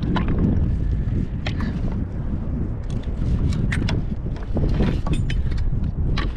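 Wind buffeting the microphone in a steady low rumble, with a few sharp clicks and knocks scattered through it.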